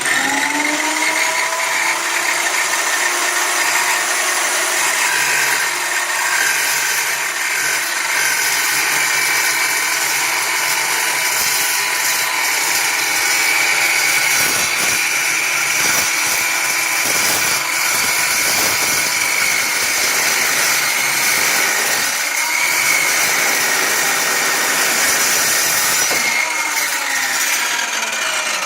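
Ironton 14-inch dry cut chop saw running and cutting through a piece of metal, with a steady high whine from the motor and blade. It winds down with falling pitch near the end.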